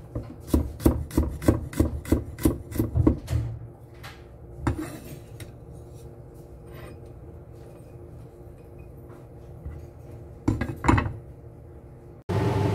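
Chinese cleaver chopping garlic cloves on a wooden cutting board: quick knocks about three a second for about three seconds, then a few soft knocks, and two louder knocks near the end.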